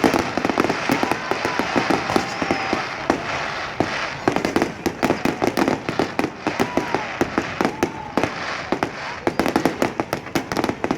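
Aerial fireworks going off in a dense, continuous volley: many sharp bangs and crackling reports a second, overlapping one another.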